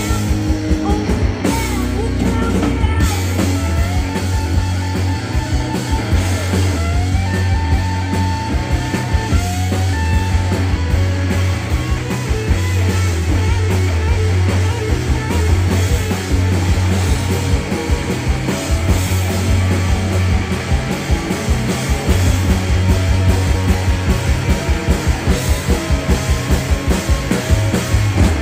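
Live rock band of electric guitars, electric bass and drum kit playing through stage PA speakers, with a sliding lead-guitar line a few seconds in; toward the end the drums pound out a steady, even beat.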